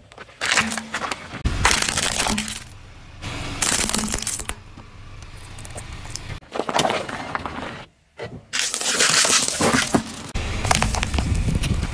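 A car tyre rolling over and crushing one object after another: plastic food packaging, a small plastic toy and plastic cups full of candy-coated chocolates cracking, crunching and bursting under the tread, with tyre noise on the road beneath. The sound changes abruptly several times as one crush cuts to the next.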